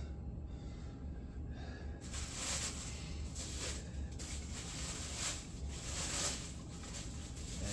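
Packaging wrap rustling and crinkling as a large statue piece is unwrapped by hand, starting about two seconds in, over a low steady room hum.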